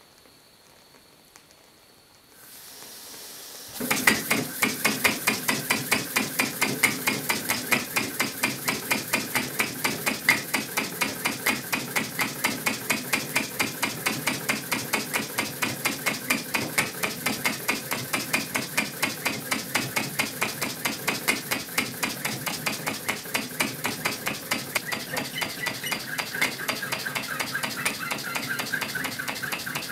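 Handmade glass model steam engine running: a hiss of steam comes in a couple of seconds in, then about four seconds in its glass moving parts start a fast, even clicking that carries on steadily over the hiss.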